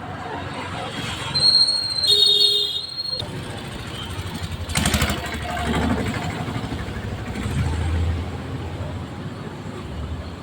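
Street traffic: motorcycles and other vehicles running past, with a high-pitched horn sounding for about a second and a half around two seconds in.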